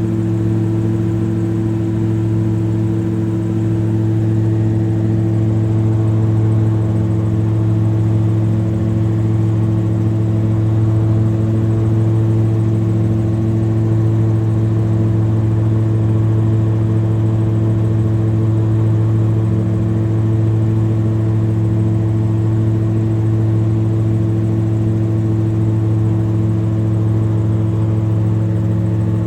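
Multirotor drone's propellers and motors humming steadily, as picked up by the drone's own microphone. It is a constant whir with a low, even pitch that does not change.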